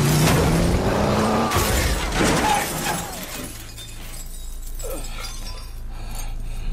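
Heavy crash with glass shattering in the first two or three seconds, a body slammed against an SUV. It then turns quieter, leaving a low steady hum and a few soft knocks.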